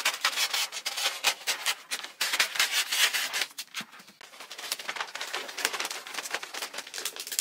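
Wrapping paper rustling and scraping as it is cut from the roll with scissors and folded around a parcel: a close run of papery scratches and crinkles.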